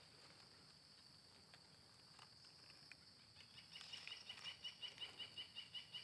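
A cricket chirping in a short regular run of about five chirps a second, starting about halfway through, over a steady high background drone.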